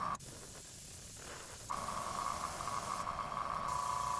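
Airbrush spraying paint with a steady hiss of air. The hiss drops away abruptly just after the start, then resumes about a second and a half later.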